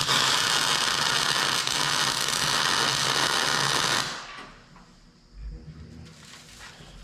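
Wire-feed MIG welder striking an arc and laying a tack weld on steel plate, a steady buzzing sizzle that starts abruptly and cuts off about four seconds in.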